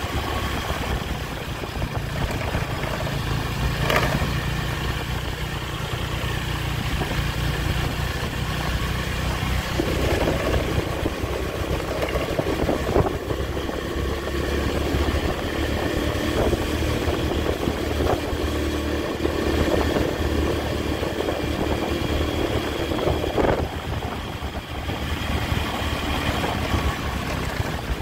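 Honda Tiger's single-cylinder four-stroke engine running steadily while the motorcycle is ridden along. A sharp click comes about four seconds in, and a higher steady hum joins from about ten to about twenty-four seconds in.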